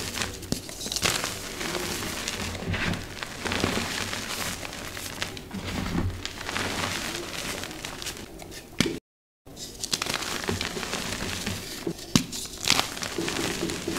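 Hands crushing and crumbling dyed gym chalk blocks: a dry, crunchy crackling of breaking chalk and grinding powder, with frequent sharp snaps as pieces break off. The sound cuts out completely for about half a second around nine seconds in.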